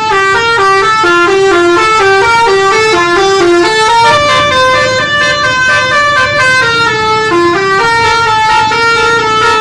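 Tour bus's multi-tone 'telolet basuri' musical horn playing a fast melody, loud, stepping from note to note several times a second, with a low rumble underneath.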